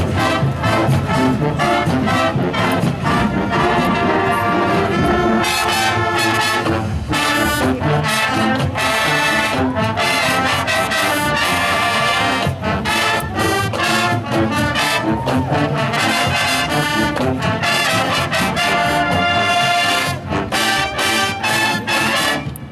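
Marching band playing full out, loud brass over the drums' steady strokes, the whole band cutting off sharply together at the end of the piece.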